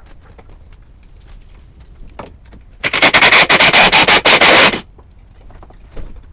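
A power impact wrench hammers for about two seconds in a loud burst of rapid blows, working a rusted bumper bolt on a Mitsubishi L200 pickup. The burst starts about three seconds in, after a few faint clicks of tools on metal.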